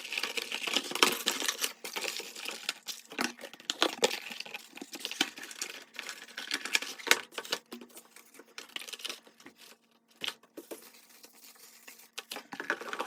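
Unboxing packaging being handled: crinkling plastic and paper with many light clicks and knocks of small parts. It is busy for the first half or so and turns sparser later.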